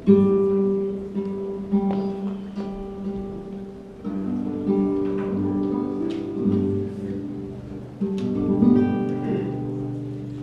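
Acoustic guitars strumming chords, the chords ringing out. Strong strums about every four seconds let each chord sound and fade, with lighter notes played in between.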